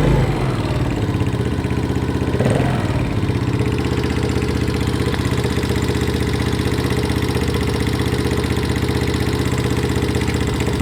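Viper ZS150J motorcycle's single-cylinder four-stroke engine idling with a valve-train tapping, the sign of too large a valve clearance. It swells briefly twice near the start, about two and a half seconds apart, then runs steadily.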